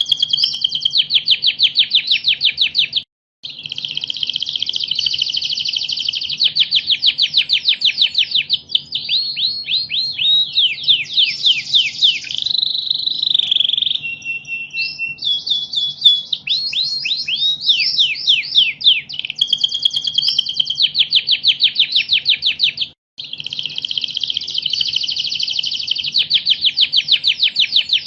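Domestic canary singing a long, fast song of rapid trills and rolling phrases, broken by two brief pauses, about three seconds in and about three quarters of the way through. A faint steady hum runs beneath it.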